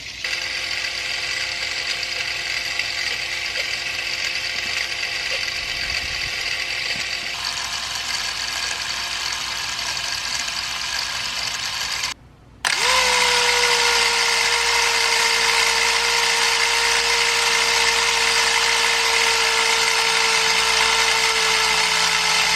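Bell & Howell Filmo 70DL 16mm camera's spring-wound clockwork mechanism running without film, a steady whir, freshly oiled and running fast. About twelve seconds in it stops for half a second, then starts again louder, its pitch dipping briefly before settling and running steadily.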